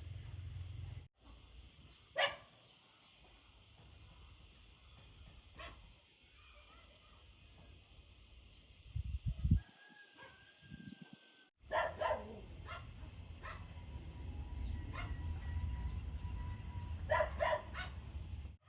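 A dog barking a few times, short separate barks spread out, over a low steady rumble. A couple of dull thumps about halfway through are the loudest sounds.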